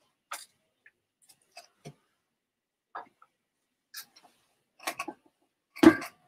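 Scattered light clicks and knocks of things being set on a table: a candle put down, then a glass wine bottle set down with the heaviest knock near the end.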